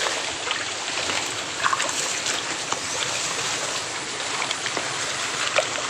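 Shallow swamp water sloshing, with small scattered splashes, over a steady rush of running water.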